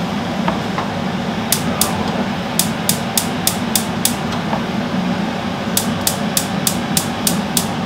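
Gas hob's electric spark igniter clicking rapidly, about three or four sharp ticks a second, as a burner is lit. The clicking stops briefly near the middle, then starts again.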